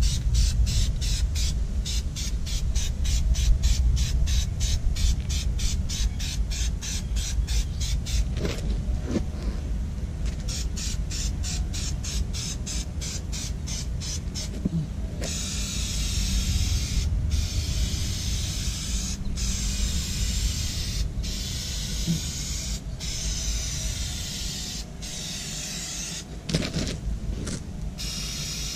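Aerosol spray can: for about the first half, short sharp rattles at an even pace of two or three a second as the can's mixing ball is shaken. Then long hissing spray passes broken by brief pauses, over a low background rumble.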